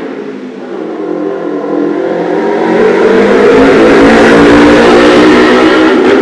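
A motor vehicle passing close by, its engine and tyres growing louder to a peak in the second half and then starting to fade.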